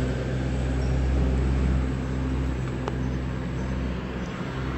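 A Kiwi battery-powered handheld sewing machine running steadily, its small motor humming as the needle works through a paper napkin. The machine is failing to form stitches.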